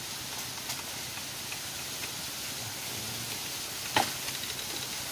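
Steady, even hiss of outdoor background noise, with one sharp click about four seconds in.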